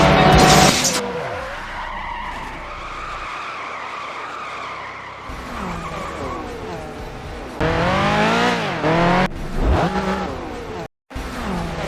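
Race car sound effects: engines revving and whooshing past, their pitch sweeping up and down, with tyre squeal. The first second carries the tail of louder music-like sound, and the audio drops out completely for a moment about eleven seconds in.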